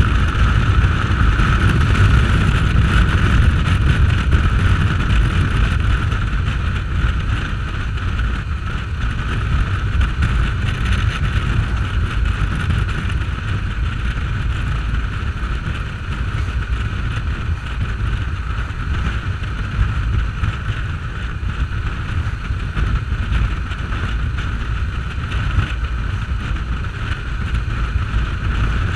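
Motorcycle riding at road speed: steady wind buffeting on the action camera's microphone over a constant engine and road drone.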